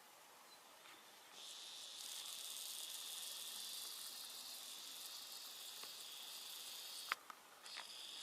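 A steady high-pitched hiss, starting about a second in and cutting off suddenly with a click near the end.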